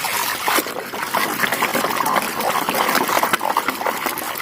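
Water splashing and trickling over a muddy toy vehicle as it is washed clean, with many small wet clicks and knocks.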